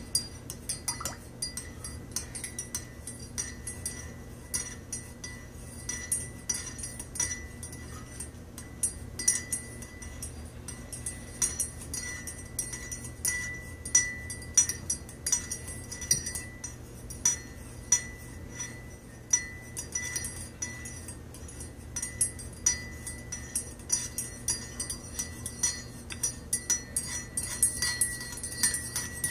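Metal teaspoon stirring coffee in a ceramic mug, clinking against the inside of the mug over and over at an uneven pace, each clink ringing briefly.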